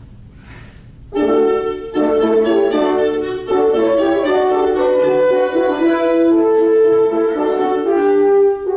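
A small group of French horns with a couple of other band players playing a passage of held notes in several parts, coming in about a second in, with short breaks between phrases.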